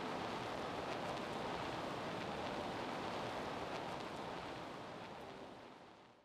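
Steady, faint hiss-like background noise with no speech or music, fading out near the end.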